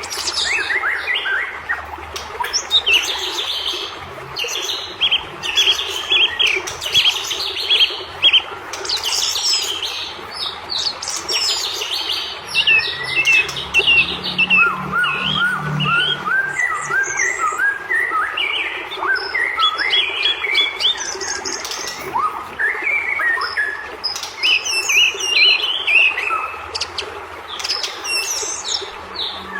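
White-rumped shama (murai batu) singing nonstop in full, agitated song: rapid chirps, whistles and trills, with a run of short rising notes about halfway through.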